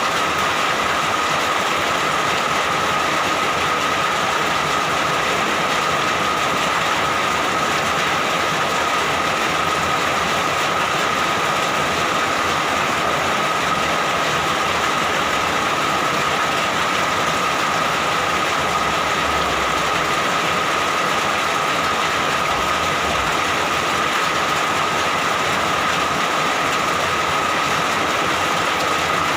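Steady rain, an even unbroken hiss at a constant level, with a thin steady tone running through it.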